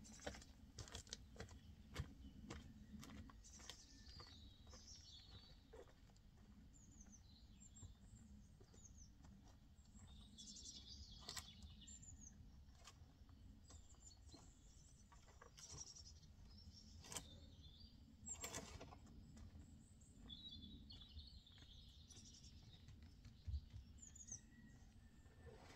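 Faint outdoor ambience: small birds chirping and singing over a low steady rumble. Footsteps crunch on gravel at the start, and a few scattered sharp clicks and knocks follow.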